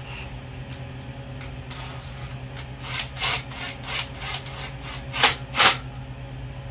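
Cordless power driver run in short trigger bursts, driving bolts on a small dirt bike: a few faint clicks first, then from about three seconds in a quick series of short whirring bursts, the last two the loudest. A steady low hum sits underneath.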